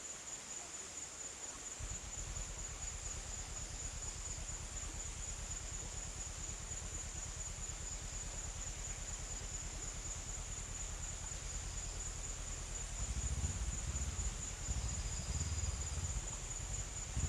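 A steady high-pitched insect drone runs throughout. A low rumble comes in about two seconds in and grows louder near the end.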